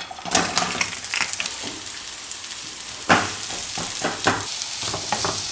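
Sliced onions sizzling in hot olive oil in a frying pan, a steady hiss with short scrapes and knocks from stirring and handling.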